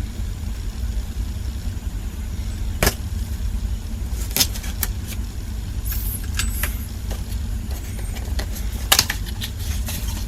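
Handling of small-tool packaging: scattered sharp clicks and short rustles, the loudest about three seconds in and near the end, over a steady low rumble.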